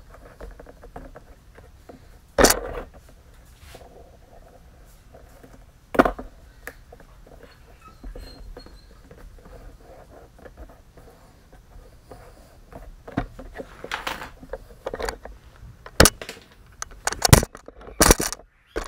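Handling noise from working vinyl around a door panel's speaker hole: faint rustling, with two sharp knocks about two and six seconds in and a quick run of clicks and knocks near the end.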